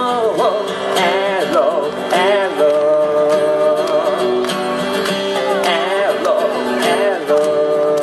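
Live pop-rock song: a strummed acoustic guitar with sustained chord tones under a wordless vocal line that slides and wavers, in two phrases, one at the start and one near the end.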